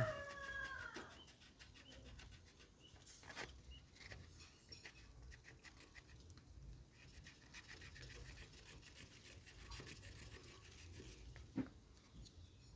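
Small knife blade scraping the cambium off a bared ring of Indian jujube branch for an air layer: faint, rapid scraping strokes with an occasional sharper click.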